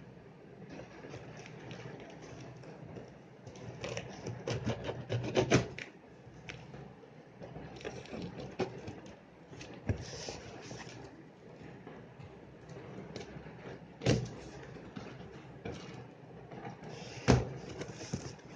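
A knife slitting packing tape on a cardboard shipping carton: tape crackling and cardboard scraping as the box is cut and handled, with a quick run of crackles about five seconds in and a few sharp knocks of the cardboard, the loudest near the end.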